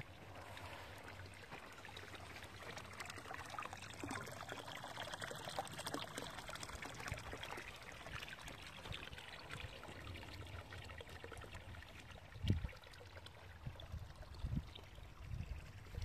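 Water pouring steadily from a fountain's pipe spout into a filled concrete trough, splashing on the water surface. A few short low thumps near the end.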